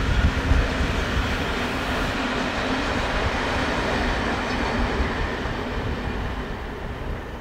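Passenger coaches and a trailing DB class 216 diesel locomotive rolling past on the rails, the banking locomotive coasting without being heard working. Heavy wind buffets the microphone throughout. The sound fades over the last couple of seconds as the train moves off.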